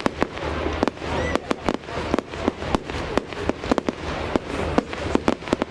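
Fireworks display: a rapid, irregular string of sharp cracks and bangs from many shells and crackers bursting, several each second, over a steady low rumble.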